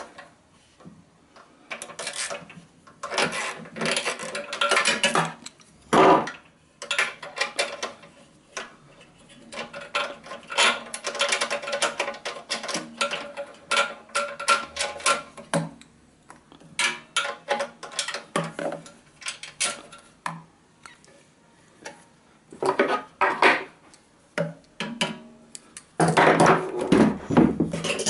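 A 10 mm spanner working a fuel-tank mounting bolt on a small engine: bursts of rapid metallic clicking and clinking with short pauses. The loudest bursts come about six seconds in and near the end.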